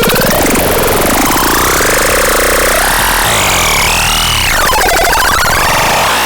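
Synthesizer playing gliding, warbling pitched tones over a harsh buzzing noise, the pitch sweeping up and down; a high tone climbs and then drops steeply about four and a half seconds in.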